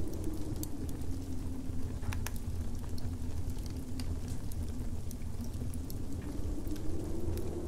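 Winter fireside ambience: a wood fire crackling with scattered sharp pops over a steady low rumble of wind, with a wavering howl that dips in pitch and rises again near the end.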